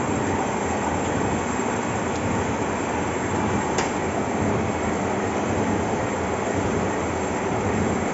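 Gear tooth grinding machine running: a steady, dense grinding noise, with one sharp click about halfway through.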